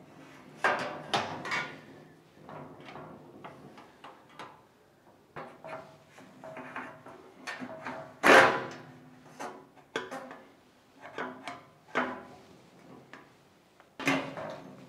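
Irregular knocks, clanks and scrapes of a steel cabinet's top panel being worked onto the frame, with one loudest clank about eight seconds in.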